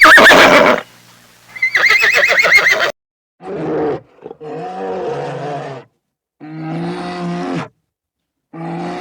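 A horse whinnying: a high call, then a longer wavering one. After a cut, a different large animal gives four separate low, drawn-out calls.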